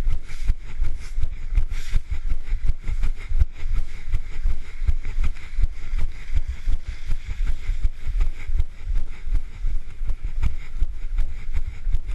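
A person running on pavement: a steady stride of footfalls with low thumps and rubbing from the hand-held camera jostling at each step.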